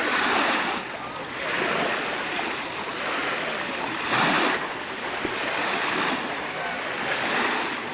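Small waves of the Dead Sea washing onto the shore, swelling into a louder wash about every four seconds.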